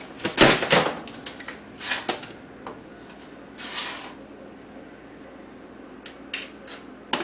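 A few separate knocks, rattles and clatters of kitchen things being handled, the loudest about half a second in, ending with a sharp click.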